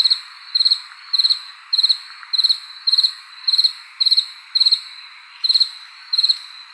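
A cricket chirping: short, high chirps of a few quick pulses each, repeating evenly a little under twice a second, over a faint steady background hiss.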